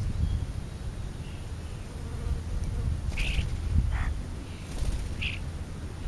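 Low, wavering buzzing rumble close to the microphone, with three short, high bird chirps: about halfway through, a second later, and near the end.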